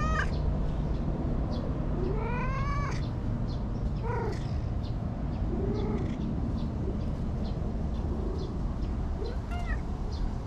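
A domestic cat meowing repeatedly while being stroked: about five meows, each with a rising-then-falling pitch, the strongest right at the start and about two to three seconds in, with a softer one near the end. A steady low rumble runs underneath.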